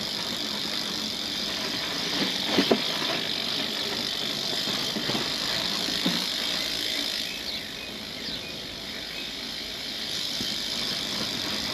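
Freewheel of a Brompton P-Line folding bicycle ticking steadily as the bike coasts or is wheeled along, with a few louder clicks and knocks.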